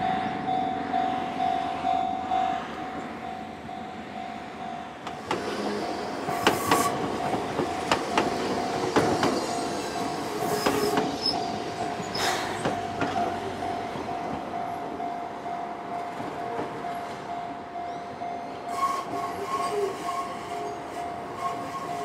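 Japanese railway level-crossing bell ringing in a steady repeated kan-kan as an Enoden electric train passes over the crossing from about five seconds in. The train's wheels clack sharply over the rail joints, and its noise fades later while the bell keeps ringing.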